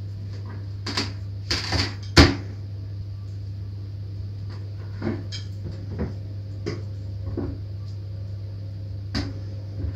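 Scattered light knocks and scrapes of a silicone spatula and a ceramic baking dish on a glass tabletop as thick curd-cheese batter is spread and smoothed, the sharpest knock about two seconds in. A steady low hum runs underneath.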